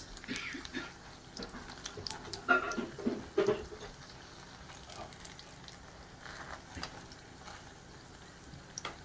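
Hot oil sizzling steadily in a frying pan as breaded patties fry, with light clicks of plastic-tipped tongs turning them. About two and a half seconds in, and again a second later, short louder pitched sounds stand out over the sizzle.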